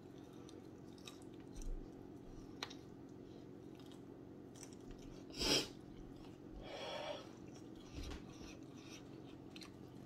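A man chewing spicy chicken wings softly, with faint mouth clicks. About five and a half seconds in comes a short voiced gasp with rising pitch, then a long breath blown out through the mouth: a reaction to the burn of Carolina Reaper hot sauce.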